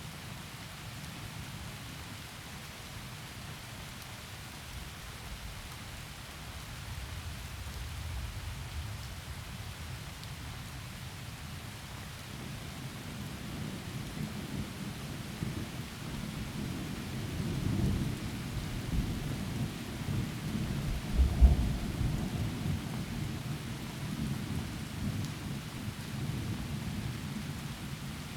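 Heavy rain falling steadily through forest trees, with rolling thunder that builds about halfway through. The thunder swells to one loud, deep rumble about three-quarters of the way in, then dies away under the rain.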